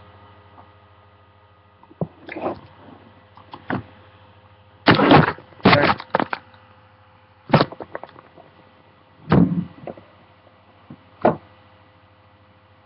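A cardboard box and card packs being handled: a string of short rustles and knocks, the loudest a cluster about five to six seconds in, over a steady mains hum.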